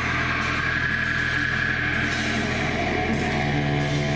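Live rock band playing a slow passage of long, held electric guitar notes over a low drone, shaped through a floor pedalboard of effects. A new set of held notes comes in about three seconds in.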